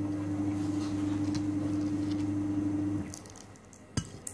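A steady, even-pitched mechanical hum that cuts off suddenly about three seconds in, followed by a sharp click near the end.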